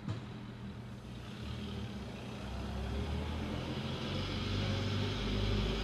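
Large vintage touring car's engine running at low speed as the car rolls slowly forward, growing steadily louder as it draws near.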